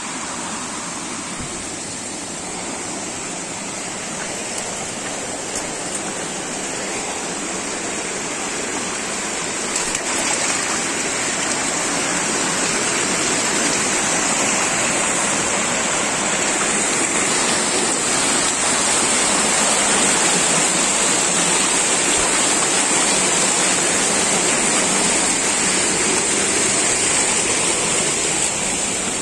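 Rocky stream rushing and cascading over boulders, a steady rush of water that grows louder about ten seconds in.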